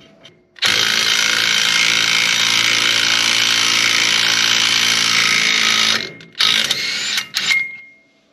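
Impact wrench hammering continuously for about five seconds, driving a lug nut to pull a knurled ARP wheel stud into the hub. It follows with two short bursts as the stud seats, and a brief metallic ring near the end.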